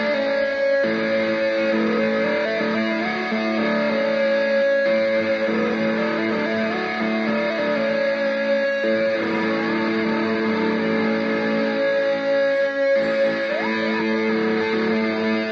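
Epiphone electric guitar played through a Sound Stone to imitate bagpipes: a steady low drone holds under a slow melody of long sustained notes that step up and down.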